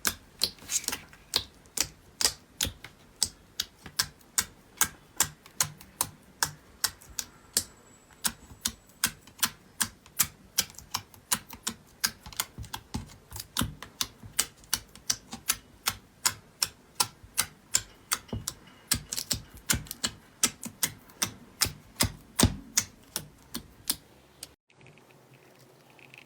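Slime being pressed and poked, making sharp clicking pops about three times a second in a steady rhythm. The pops stop suddenly near the end, leaving a faint hiss.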